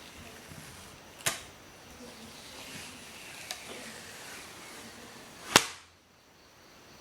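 Two sharp knocks or snaps about four seconds apart, the second louder and preceded by a brief rising rustle, over a faint steady background.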